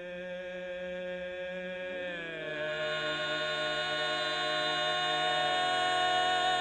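Barbershop quartet singing a cappella: four men's voices holding a sustained chord, moving to a new chord about two seconds in and swelling louder as they hold it.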